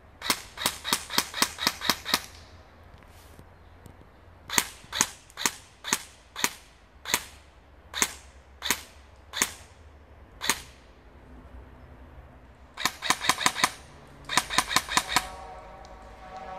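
Airsoft gun firing: a quick string of about eight shots, then about a dozen single shots roughly every half second, then two rapid bursts near the end.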